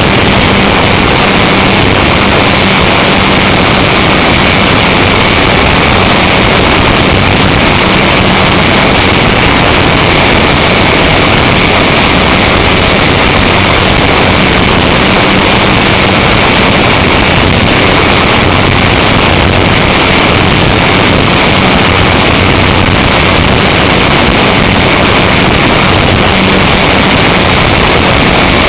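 Onboard sound of an electric RC model plane in flight: the E-max 822 brushless motor and 9x5 propeller running steadily, heard from a camera on the plane's windshield under heavy wind rush. Loud throughout, with a steady low hum and a high whine over the rushing.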